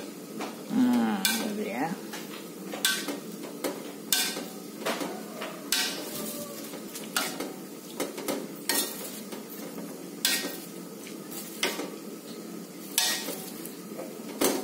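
Metal ladle stirring and pressing rice vermicelli soaking in hot water in a wok. It knocks and scrapes against the wok in irregular strokes, roughly one a second.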